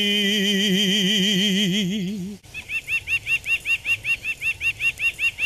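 A man holds the last sung note of a Naga folk-tune phrase with a wide vibrato for about two seconds. It breaks off, and a bird starts repeating a short, high chirp about four times a second.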